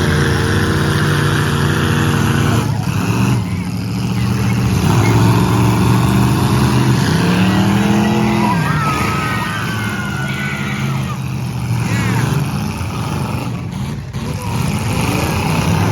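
Demolition derby car engines running and revving, one climbing in pitch and dropping back about halfway through, with brief tire squeals.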